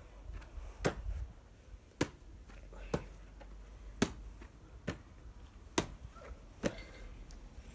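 A rugby ball slapping into hands as it is caught and passed back one-handed. There are about seven sharp slaps, roughly one a second.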